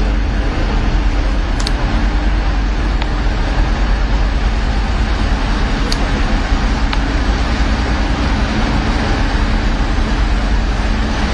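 Steady, loud rumble and hum of a large catamaran ferry's engines running, its propulsion churning the sea white at the stern.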